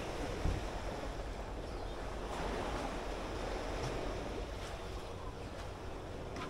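Sea waves washing in, a steady rush of surf.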